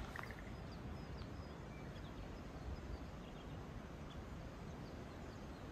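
Faint, scattered chirps of small birds over a quiet, steady outdoor background hiss.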